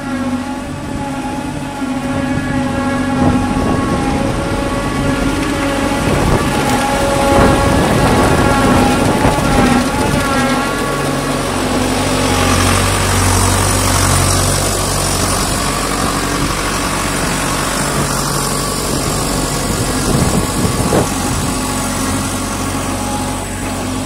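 Tractor engine running steadily under load, driving a Conor diet feeder through its PTO as the feeder chops and mixes a silage bale; a steady machine hum with several even tones. About halfway through the sound becomes rougher, with more low rumble and hiss.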